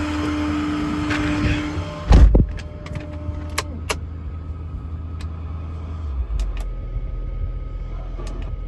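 A steady motor drone that cuts off, then a heavy thump, a few sharp clicks, and a low steady motor rumble starting about six seconds in. These are truck equipment and body sounds on a heavy-duty work truck.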